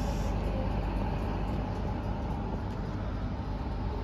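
Class 91 electric locomotive standing at the platform, giving off a steady low hum.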